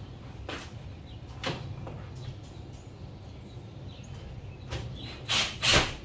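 Wooden coop panels knocking and scraping as they are handled and fitted together: a few light knocks, then two louder scraping knocks in quick succession near the end, over a steady low hum.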